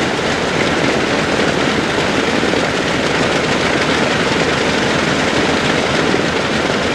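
Lockheed L-1049H Super Constellation's Wright R-3350 radial piston engines running at low power while the aircraft rolls on the ground, heard from inside the cabin as a steady, loud, unbroken noise.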